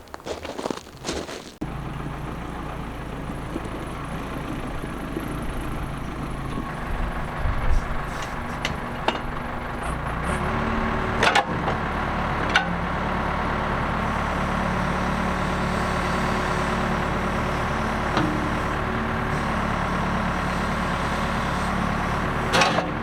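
Small gasoline engine of a Woodland Mills HM130Max bandsaw mill starting up about a second and a half in and running at idle. About ten seconds in it is throttled up to a higher, steady speed. A few clicks and knocks are heard along the way.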